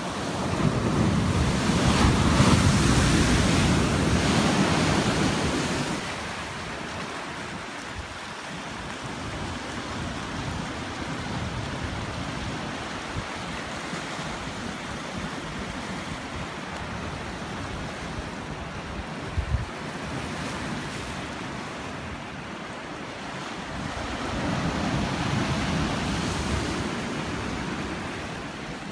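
Ocean surf: a wave breaks and washes in loudly for the first several seconds, then settles to a steady wash of water around rocks, and swells again near the end. Wind rumbles on the microphone, and there is one short thump about two-thirds of the way through.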